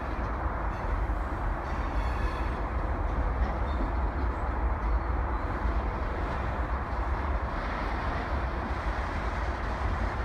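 VIA Rail passenger train approaching in the distance: a steady, even rumble that does not rise or fall noticeably. Wind buffets the microphone throughout.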